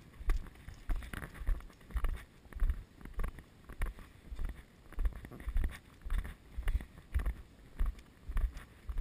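Footsteps of a person walking on dry grass, heard as dull thumps through a body-worn camera, about two a second.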